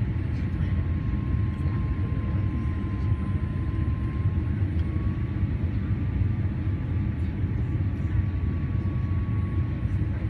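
Boeing 787 cabin noise on approach to land: a steady low rumble of engines and airflow heard from inside the cabin, with a faint thin high tone running above it.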